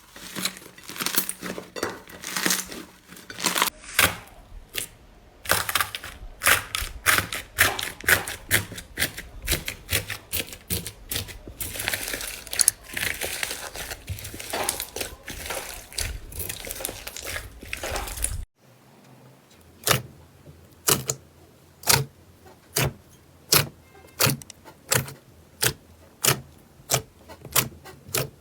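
Slime being pressed and squished close to the microphone, with dense crackling and popping clicks. About two-thirds of the way through it changes abruptly to single sharp pops, roughly one a second.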